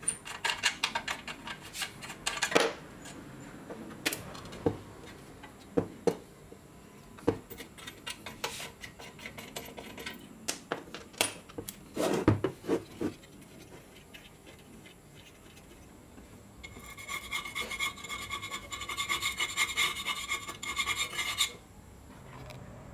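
Old rusty Makita circular saw being handled: clicks, knocks and scraping of its stiff metal parts as its knob is worked and the saw is moved and shaken. Near the end comes a harsh buzzing rattle that lasts about four seconds and stops suddenly.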